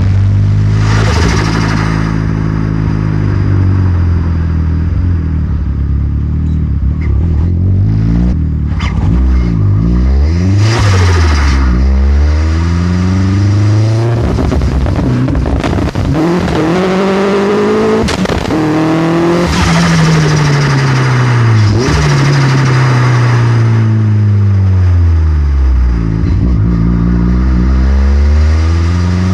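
Astra VXR's turbocharged 2.0-litre four-cylinder engine pulling hard and falling back again and again, its pitch climbing then dropping over and over, with a few sharp cracks where the revs fall.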